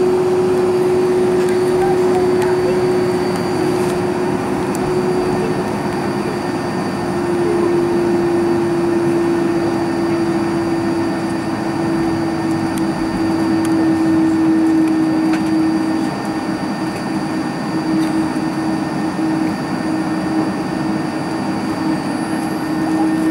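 Airbus A310 airliner's jet engines and airflow heard inside the cabin over the wing while taxiing at low thrust: a steady rushing hum with a faint high whine. The main hum sags slightly in pitch, with no spool-up for take-off.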